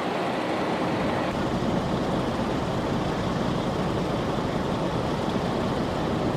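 A vehicle engine running steadily, a constant low hum under an even noise, with no break or change in level.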